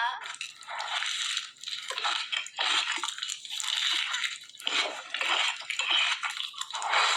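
Someone chewing and crunching food in uneven crisp bursts, with no pause longer than a moment.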